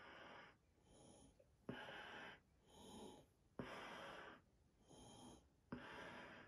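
Faint breathing in and out through a Scott FRR gas mask and its filter, the wearer sniffing during a smell test of the mask's seal. The breaths come about once a second, and every other one is stronger and starts with a sharp click.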